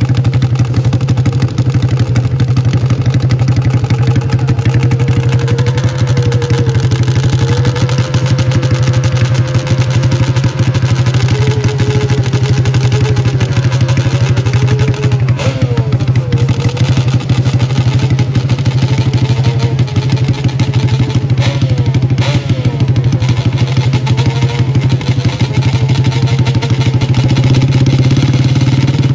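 Sport ATV engine idling steadily and loudly close by, its idle wavering a little in pitch and picking up slightly near the end.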